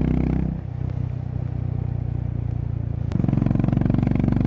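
Honda CB350RS's air-cooled single-cylinder engine running under way: about half a second in the throttle eases off and the exhaust note drops to a lower, pulsing beat, then a little after three seconds, just after a sharp click, it picks up again to a fuller note.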